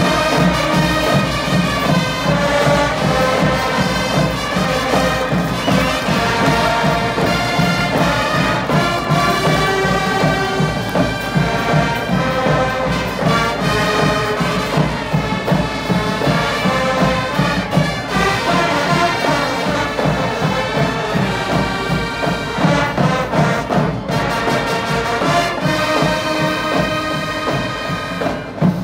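A school marching band playing live, with brass instruments leading, without a break.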